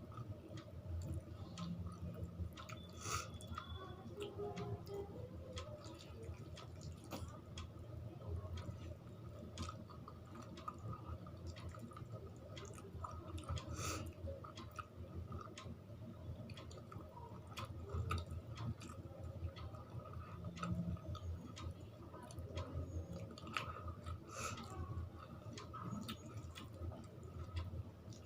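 A person chewing a meal of rice and curry close to the microphone, with many irregular mouth clicks and smacks.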